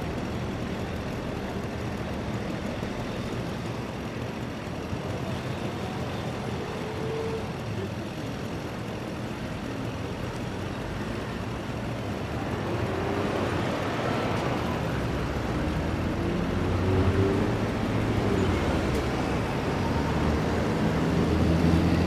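Road traffic: a steady mix of car and heavier vehicle engines and tyre noise. It grows louder about halfway through as vehicles pass closer, with faint rising and falling engine tones.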